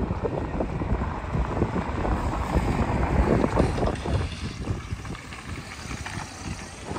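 Wind buffeting the microphone: an uneven low rumble that swells and drops in gusts.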